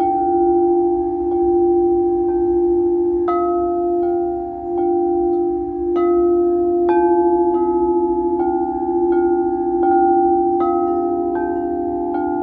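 Crystal singing bowls struck gently with mallets, about once a second, each strike adding a new bell-like tone over a sustained drone of several overlapping pitches that pulse slightly as they ring.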